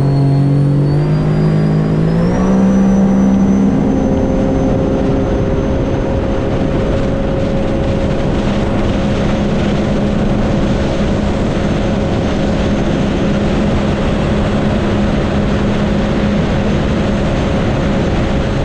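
The supercharged Rotax 1630 ACE engine of a 2021 Sea-Doo RXT-X personal watercraft is run at full throttle on a top-speed pass. Its pitch climbs, with a high whine rising alongside, for about the first three and a half seconds. It then holds steady at top speed under heavy wind and water rush.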